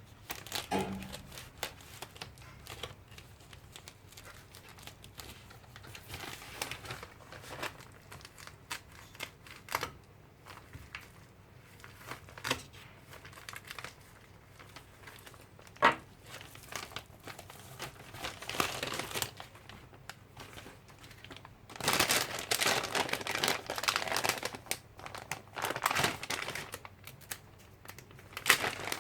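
Package wrapping crinkling and tearing as it is opened by hand, with scattered clicks and rustles. A sharp click comes a little past halfway, and a louder spell of crinkling near the end.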